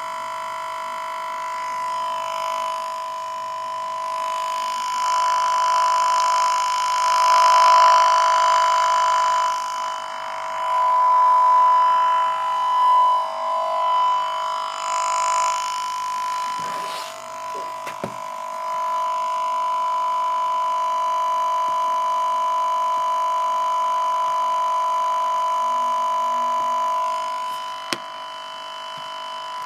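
A computer running with a steady whine of several tones that swells and fades in places. A few clicks come about two-thirds of the way through, and a single sharp click comes near the end.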